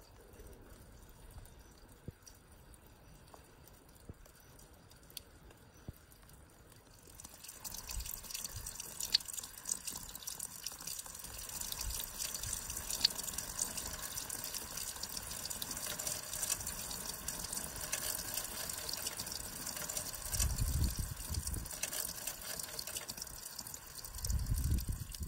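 Melting snow and ice dripping and trickling. Faint, scattered drips give way about seven seconds in to a louder, denser patter of drips over running water. Two low rumbles come near the end.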